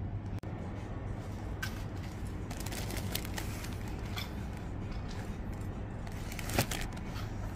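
Supermarket background with a steady low hum, scattered light clicks and rustles, and one sharper click near the end.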